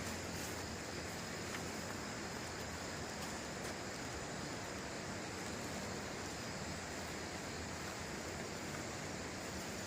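Steady, even outdoor background noise with faint high, steady tones running through it.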